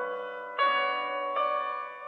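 Samsung Galaxy A32 ringtone (One UI 4) playing: a melody of struck, ringing chords with a piano-like tone, a new chord about every three-quarters of a second.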